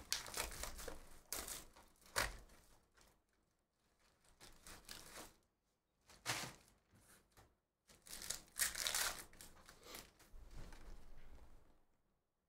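A Bowman's Best trading-card hobby box and its wrapped card pack being torn open and handled: crinkling and tearing of wrapper and cardboard in several spells with short pauses between.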